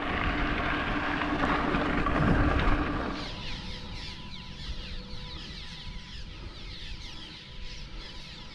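Wind rumbling on the microphone. About three seconds in, it gives way to a large flock of marsh birds calling all at once: many short, falling notes overlapping into a dense chorus.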